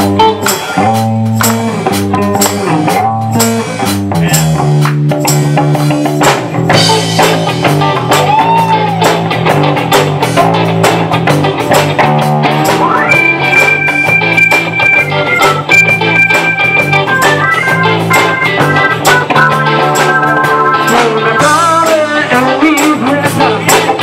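A live rock band playing with drum kit, electric bass, keyboard and electric guitar to a steady beat. A held high melody line comes in about halfway through.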